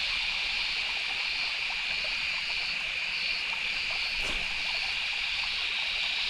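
Steady high-pitched chorus of night insects, crickets, trilling without pause.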